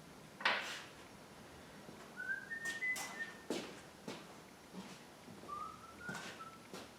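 A person whistling two short phrases of steady notes. Sharp knocks and clicks of parts being handled come between the notes, with a louder knock about half a second in.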